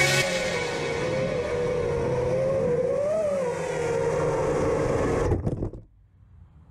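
Armattan Chameleon Ti 5-inch FPV quadcopter's T-Motor 2306 motors and props whining, the pitch wavering with the throttle and rising briefly about three seconds in. The motors cut off suddenly about five and a half seconds in.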